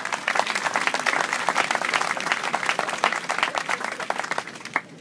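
Audience applauding; the clapping thins out near the end and stops with a last clap.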